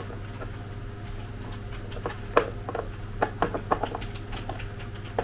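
Small screwdriver turning screws on the plastic case of an Xtar X4 battery charger: scattered light clicks and ticks, mostly in the second half, over a steady low hum.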